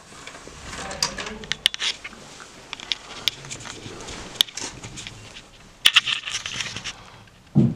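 Handling noise: scattered sharp clicks and rustling as a disc is set into a Blu-ray player's tray and the camera is moved, with a short dull thump near the end.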